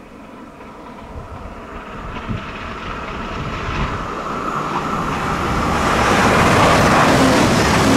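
A modern passenger multiple-unit train on diesel traction approaching at speed on a main line, its engine and wheel-on-rail noise growing steadily louder as it nears.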